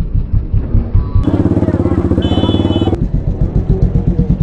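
KTM Duke 200's single-cylinder engine with a loud aftermarket Akrapovic exhaust, running at low revs with a rapid, even pulsing as the bike creeps along at walking pace.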